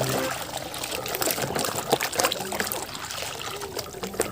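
Water trickling and splashing as a muddy toy is washed, with scattered small clicks and knocks.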